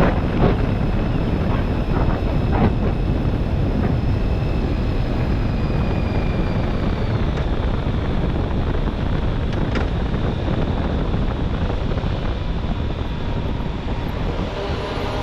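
Wind buffeting the microphone over the steady rumble of a moving vehicle's road and engine noise, with a few sharp knocks near the start.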